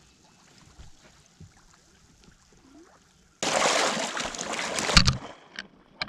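Water lapping faintly around a small duck boat as it is towed through shallow flooded timber, with light ticks and knocks. About three and a half seconds in, a sudden loud rushing noise with a few knocks starts and lasts under two seconds.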